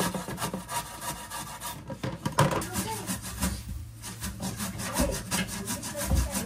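Sweet potato being grated by hand on a grater: rapid, repeated rasping strokes.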